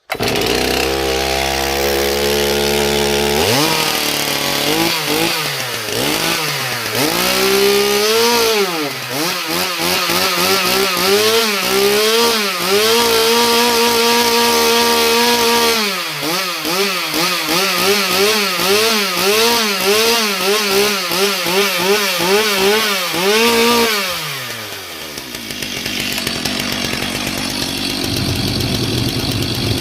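Stihl MS 362 two-stroke chainsaw engine running just after a cold start. It runs steadily at first, drops sharply, and is then revved up and down many times and held high for several seconds. Near the end the revs fall away and it settles to a rougher, lower idle.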